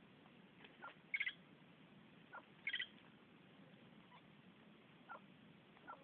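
Birds calling: a faint short note repeated roughly every three-quarters of a second, with two louder, harsher calls about one and three seconds in.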